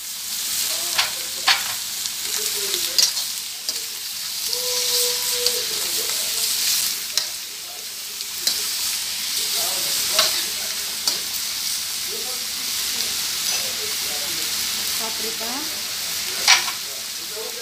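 Shrimp sizzling as they fry in oil and butter in a stainless steel wok while being stirred with a spoon. Sharp metal clinks against the pan come now and then, the loudest near the end.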